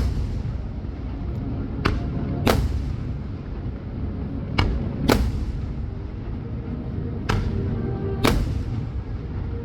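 Aerial fireworks shells bursting: about seven sharp bangs, several coming in pairs about half a second apart, over a steady low rumble.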